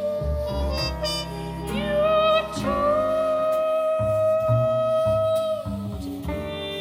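A vinyl record of a mezzo-soprano singing with accompaniment, played through Quad 57 electrostatic loudspeakers. About two seconds in she glides up and holds one long note with vibrato for about three seconds, then the line falls away near the end.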